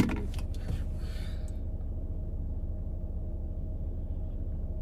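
Low, steady rumble inside a parked car with its engine idling. A sharp click at the very start and a few faint handling rustles follow in the first second and a half.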